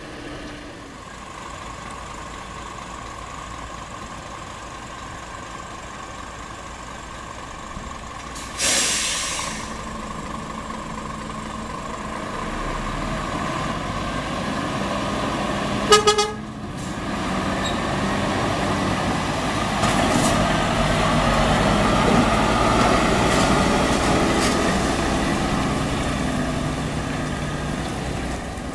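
Scania semi-truck's diesel engine running as the truck sits on a weighbridge and then pulls away. A sharp hiss of compressed air about nine seconds in, an air brake release. A short horn toot around sixteen seconds. The engine then runs louder as the truck drives off.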